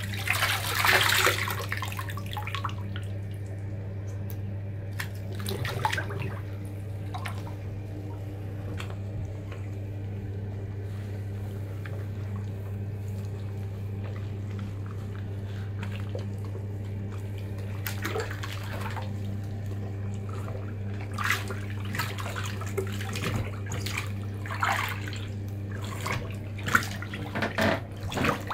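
Bathwater sloshing and splashing in a tub as canvas high-top sneakers are moved through it by hand and on the feet. The splashing comes in bursts near the start and again through the last ten seconds, over a steady low hum.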